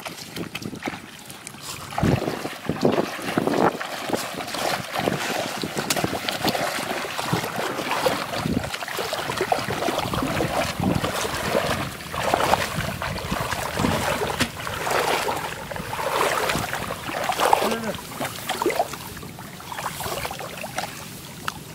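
People wading through shallow floodwater in a flooded rice field: water splashing and sloshing around their legs in uneven strokes.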